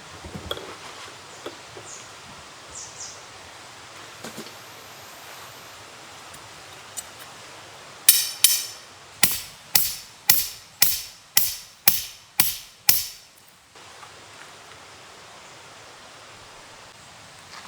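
Hammer blows, about ten in a row at roughly two a second, each sharp with a short ringing decay.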